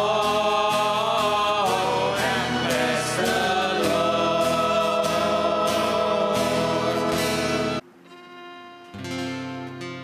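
Church worship song sung by a group of voices over guitar and keyboard. About eight seconds in the music cuts off suddenly, and a second later an acoustic guitar starts strumming softly.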